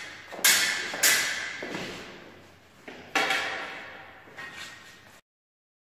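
Steel fencing blades clashing: three loud strikes and a softer one near the end, each ringing out with a long echo in a large, empty hall, then the sound cuts off abruptly.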